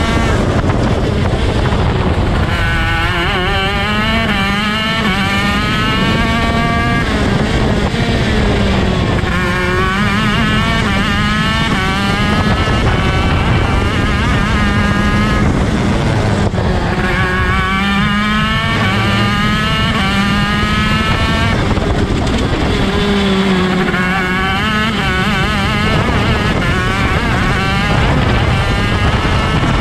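ROK Shifter 125 cc two-stroke kart engine at race pace: the revs climb in stepped runs through quick gear changes, then fall away when slowing for corners, several times over.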